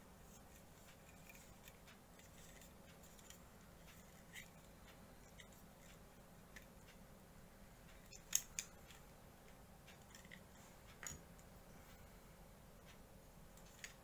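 Faint, scattered clicks of hard plastic model-kit parts being handled and snapped together, with the loudest two clicks close together about eight seconds in.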